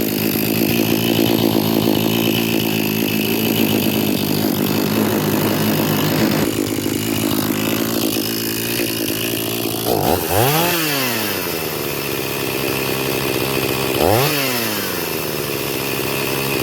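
Echo CS-500P chainsaw's two-stroke engine idling steadily while its idle is being set after a carburetor rebuild, then revved briefly twice, about ten and fourteen seconds in, each time rising sharply and dropping back to idle.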